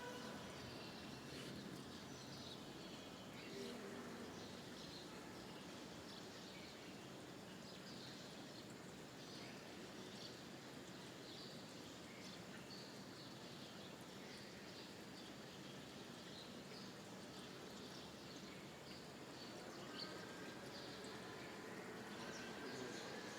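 Small birds chirping in short, repeated high calls over faint steady background noise, with a faint rising whine near the end.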